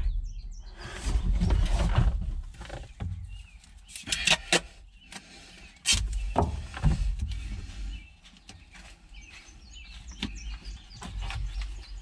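Hands working plastic parts of a skid-steer cab's air-conditioning evaporator housing back into place: irregular clicks, taps and rustling, with a cluster of sharp clicks about four seconds in and low handling rumbles between.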